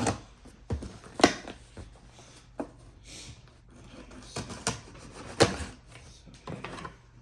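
Handling of a cardboard shipping package: scattered knocks, taps and rustles at irregular intervals, the sharpest a little over a second in and about five and a half seconds in.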